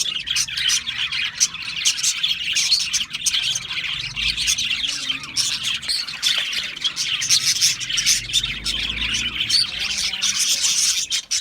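Several budgerigars chattering and warbling together, a continuous dense stream of quick high chirps.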